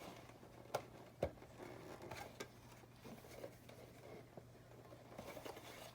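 A few faint clicks and taps of small plastic toy parts being handled as a miniature closet rod is fitted into its grooves, the clearest two in the first second and a half.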